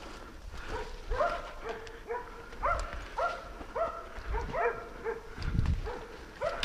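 Hunting dog barking over and over, about two barks a second, as dogs bay at a boar they have found.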